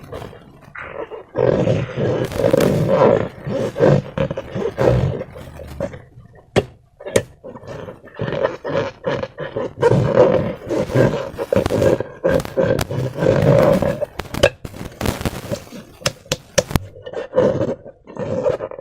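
Slime being squeezed and kneaded by hand, squelching continuously with sharp crackles and pops of trapped air. There are brief lulls about 6 and 8 seconds in.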